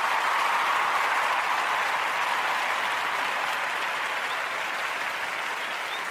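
Applause from many people clapping, easing off slightly toward the end.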